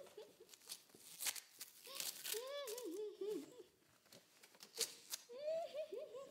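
Tape being pulled and ripped in short crackling tears, with a few sharp clicks, while a child's wordless voice hums in rising and falling pitch twice.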